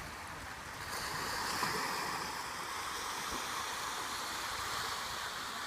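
Pacific surf on the California shore: a steady rushing wash of breaking waves that swells about a second in, then holds.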